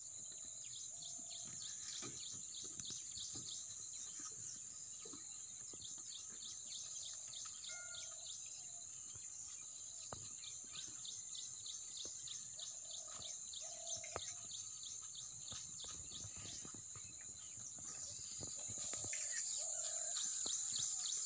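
Outdoor scrubland ambience: a steady high insect drone with many quick bird chirps, and a low two-note call that repeats about every six seconds.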